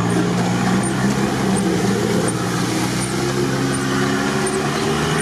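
Off-road vehicle's engine running steadily under load as it drives through muddy water, with a constant wash of water and tyre noise. The engine pitch rises gently over the last couple of seconds.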